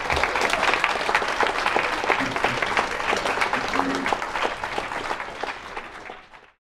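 Small audience applauding with a steady patter of many hands clapping, fading out near the end and then cutting off.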